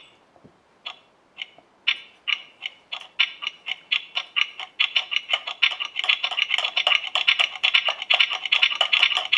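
Alarm clock ticking, the ticks speeding up from about two a second to a rapid run of about five a second and growing louder.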